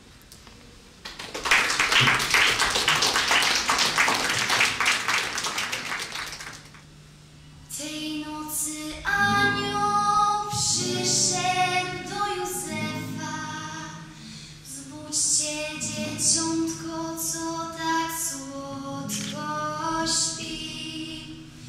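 Audience applause for about five seconds, then a teenage girl singing a song solo into a microphone, with a sustained low note under her voice.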